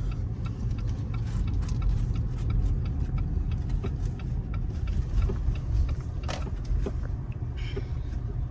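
Steady low rumble of an old Jeep's engine and road noise heard from inside the cabin while driving, with faint regular ticking and one sharper click about six seconds in.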